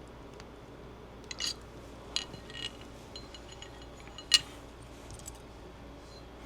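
A few small metal clicks and clinks of a front sight tool and pistol slide parts being handled, the sharpest clink about four seconds in.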